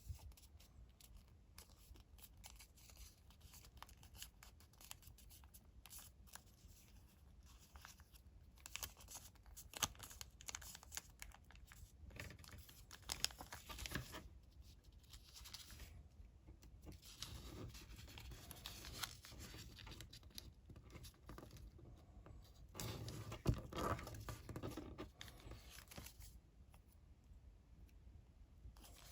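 Colored origami paper being folded and creased by hand: faint, irregular rustling and crinkling with crisp creasing strokes, louder in clusters around ten, fourteen and twenty-four seconds in.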